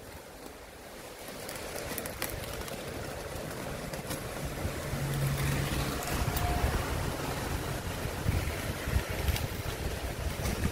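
Rumbling handling noise with a few sharp clicks and rustles as a bubble-wrapped cardboard parcel is moved and turned over by hand.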